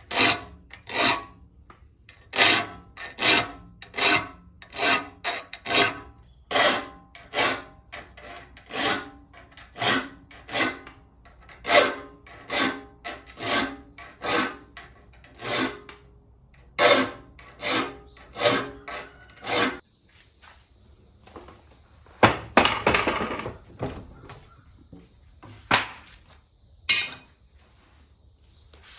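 Saw file stroking across the teeth of an antique Disston hand saw, one stroke after another in a steady rhythm, each with a faint metallic ring from the saw plate, as the teeth are sharpened. The strokes stop about two-thirds of the way in, followed by a short scrape and two sharp knocks near the end.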